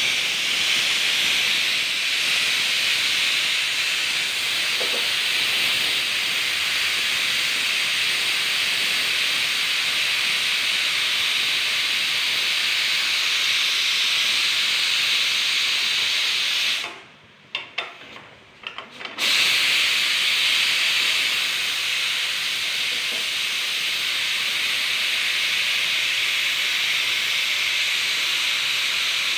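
Stovetop pressure cooker releasing its steam through the vent after the heat is turned off: a steady, loud hiss. About two-thirds of the way through, the hiss cuts out suddenly for about two seconds, then resumes.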